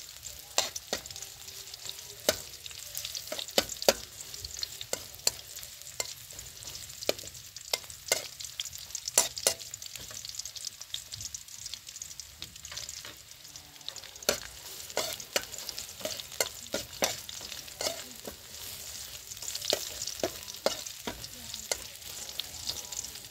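Chopped garlic and red chilies sizzling in hot oil in a steel wok, with a metal spatula scraping and clinking against the wok at irregular intervals as they are stir-fried.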